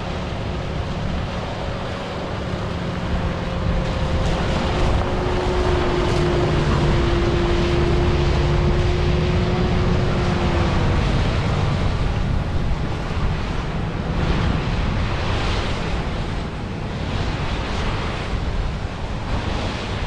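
Heavy harvest machinery running steadily, with wind buffeting the microphone. A steady whine stands out over the machine noise for several seconds in the middle.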